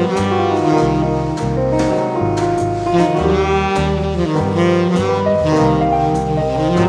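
Instrumental background music in a jazz style: a melodic lead over a low bass line, with evenly spaced cymbal strokes.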